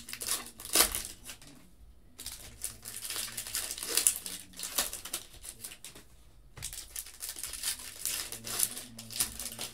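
Foil trading-card pack wrappers being torn open and crinkled by hand while the cards are pulled out and handled: three stretches of crackly rustling with short pauses between them.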